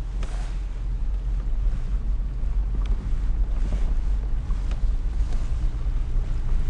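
Vehicle rolling at walking pace over a gravel road: a steady low engine and tyre rumble with wind buffeting the microphone, and a few faint ticks from the gravel.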